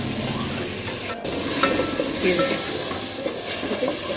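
Chicken and spices sizzling in a little oil in a metal pot while a spoon stirs and scrapes against the pot, with a brief dropout about a second in.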